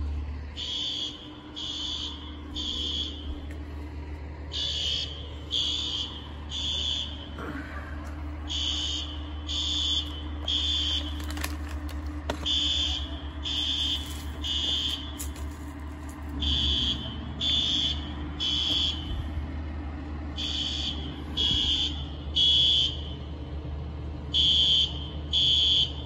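A building fire alarm sounding its evacuation pattern: sets of three high beeps, a pause, then three more, repeating about every four seconds over a low steady hum.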